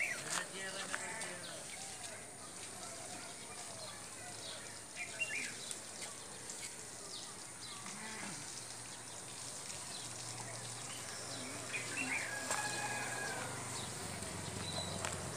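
Village outdoor ambience: scattered bird chirps and indistinct distant voices, with a low engine hum that builds in the second half.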